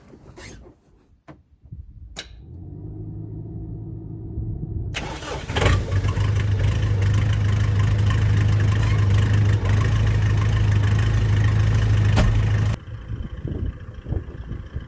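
An engine starts about two seconds in and settles into a steady low-pitched run, growing much louder from about five seconds. The engine sound cuts off abruptly near the end.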